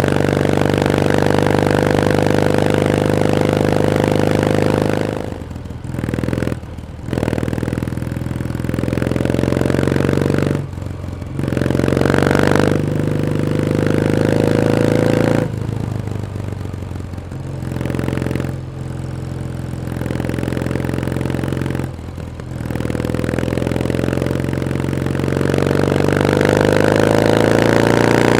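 Kawasaki W1S vertical-twin engine pulling under load while riding. The engine note drops away briefly several times, as on a throttle lift or gear change, and the revs climb again after each, rising most near the end.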